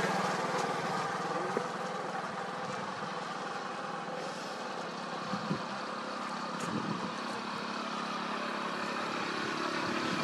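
Motorcycle engine running as the bike rides away and fades, with another motorcycle approaching near the end.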